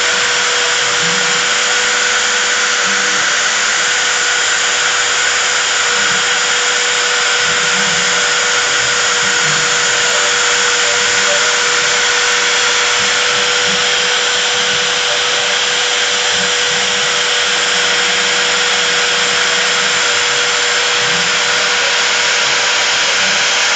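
CNC engraving spindle running at constant speed while milling 3 mm brass plate: a steady whine over a loud, even rushing noise that does not change.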